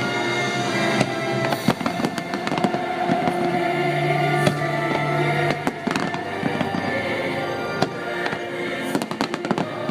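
Fireworks going off over the show's music: many sharp bangs and crackles over held musical notes.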